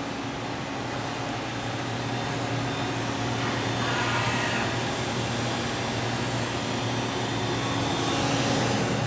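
Matsuura MC-600V CNC vertical machining center running, a steady mechanical hum with hiss. The hiss swells briefly about four seconds in.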